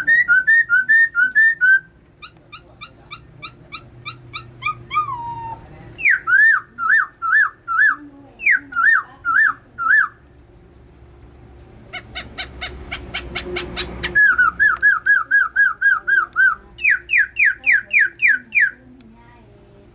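Caged hill myna whistling loudly: runs of quick, repeated ringing notes, about four to six a second, in phrases of a few seconds with short gaps between them. The last phrases end just before the twentieth second.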